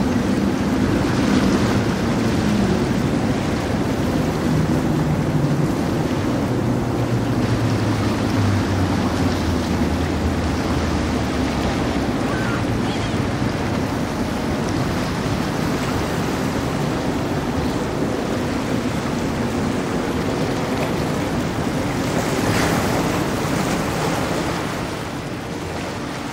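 Steady rushing noise of wind and water, with a low engine hum that slowly sinks in pitch and fades out during the first half.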